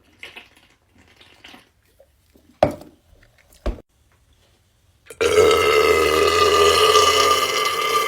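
A man's long, loud belch, held at one steady pitch for over three seconds, starting about five seconds in. Two short knocks come before it.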